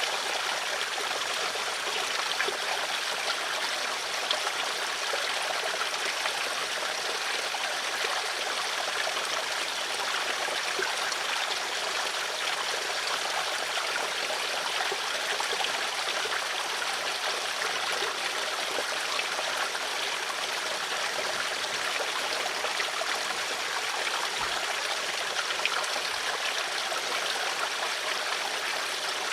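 Stream of water flowing steadily, a continuous babbling rush with small splashes and trickles.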